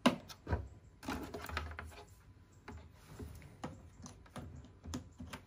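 Handling of a plastic hot-brush hair straightener and its power cord on a table: a string of sharp, irregular clicks and taps, the loudest right at the start, with a short rustle about a second in.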